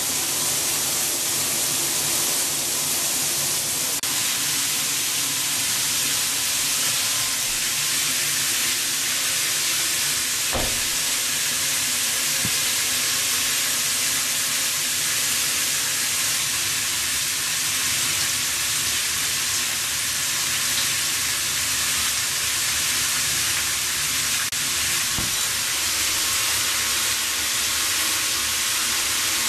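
Water spraying steadily from a large rainfall shower head, an even hiss of falling water, with a light knock about ten seconds in.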